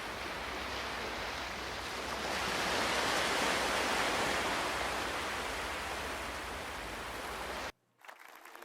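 Ocean waves washing on a shore: a steady rush of surf that swells as a wave comes in about two seconds in, then eases. It cuts off abruptly near the end, and soft music begins.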